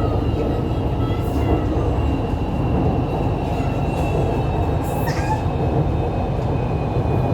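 A moving train heard from inside the carriage: a steady, loud rumble of the running train with a thin high whine over it.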